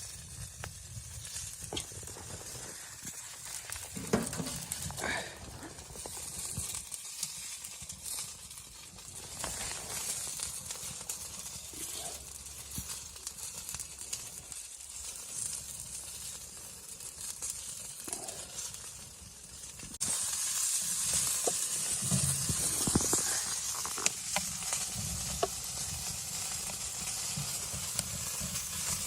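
A steady hiss with scattered light clicks and a few soft knocks; about two-thirds of the way in the hiss abruptly turns louder and brighter.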